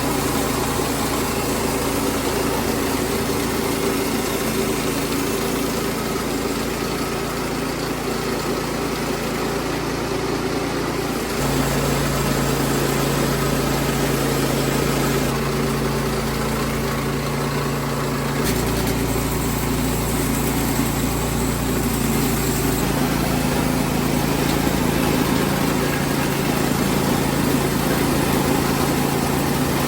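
Small gasoline engine of a Woodland Mills HM122 portable bandsaw sawmill running steadily at working speed while the band blade cuts through a juniper slab. Its tone shifts slightly about eleven seconds in and again about eighteen seconds in.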